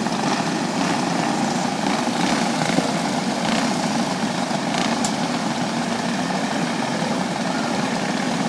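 Several alcohol-burning racing kart engines idling together in a steady drone while the karts sit lined up on the track.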